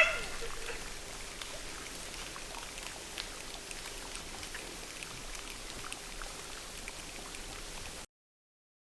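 Steady light patter of fine crackles and scattered ticks, like rain, made by hand as a foley effect. It follows the fading ring of a knock at the very start and cuts off abruptly about eight seconds in.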